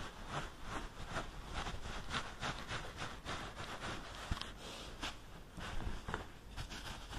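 Towel rubbing over wet hair in quick, even strokes, about two to three a second.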